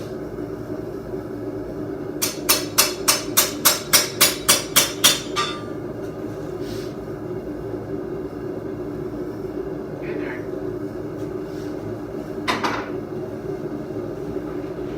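A hammer striking steel on an anvil: a run of about a dozen ringing blows, about four a second, beginning a couple of seconds in, then one more blow near the end, over a steady hum.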